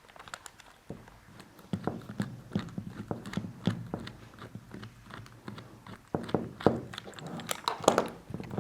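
Phillips screwdriver turning a screw out of an airsoft rifle's lower: irregular small clicks and scrapes of metal tool on screw and handled parts, louder and busier in the last couple of seconds.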